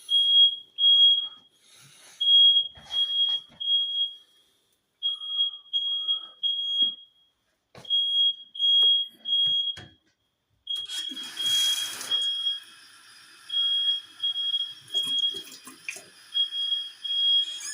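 Hallway smoke alarms sounding in the three-beep evacuation pattern: three high beeps, a pause of about a second, then repeating. About eleven seconds in there is a short rush of noise, after which a steady ringing of several higher tones continues under the beeps.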